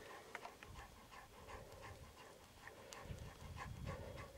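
A dog panting faintly, with a few light clicks.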